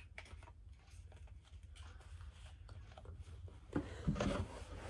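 Faint scattered handling clicks over a low room hum, then about four seconds in, louder rustling and knocks as a CD case and a hardback journal are handled close to the microphone.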